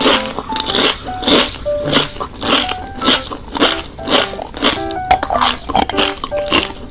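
Music: short pitched notes hopping between pitches over a beat of crisp percussive hits, about two hits a second.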